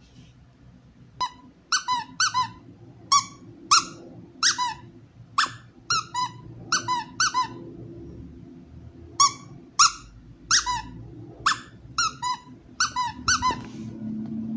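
A rubber squeaky dog toy squeezed over and over as a played-back recording: about twenty short squeaks, each dropping in pitch, some in quick pairs, in two runs with a short pause in the middle.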